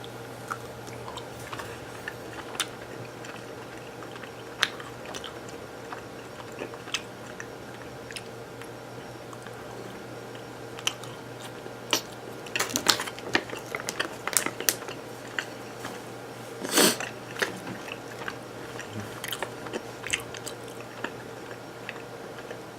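A person chewing a piece of ghost-pepper-spiced smoked beef: scattered small mouth clicks and crunches, with louder bouts of chewing in the second half, over a steady low hum.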